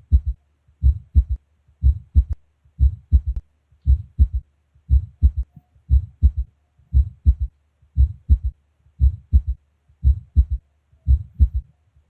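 Heart auscultation recording of a third heart sound (S3): about one beat a second, each a triple thump 'tum-tatu', S1 then S2 with S3 following right after S2. The S3 is the sound of blood striking blood in early diastole. A faint steady low hum runs beneath.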